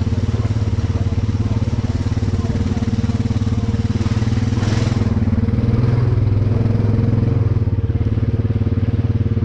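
Honda Rubicon 520 ATV's single-cylinder engine running steadily while riding through mud, its exhaust pulsing evenly, picking up a little after the middle. A brief burst of noise comes near the middle.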